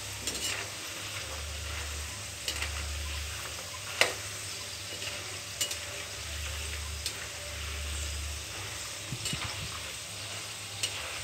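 Spice-and-gram-flour-coated peanuts deep-frying in oil in a kadhai on a low flame, a steady sizzle with a few sharp clicks, the loudest about four seconds in. A metal spoon stirs through the oil near the end.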